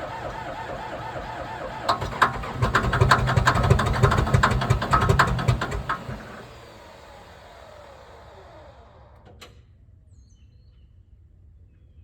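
Komatsu D57S1 track loader's diesel engine cranked by its starter on starting fluid during a hard cold start. About two seconds in it starts firing, loud and uneven, for roughly four seconds and almost catches. Then it dies, and the sound falls in pitch as it spins down, followed by a single click.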